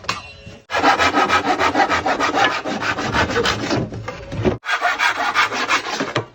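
Hand jab saw cutting through wooden blind stop stock in fast, even back-and-forth strokes. The sawing pauses briefly about two-thirds of the way in, then goes on for another second and a half.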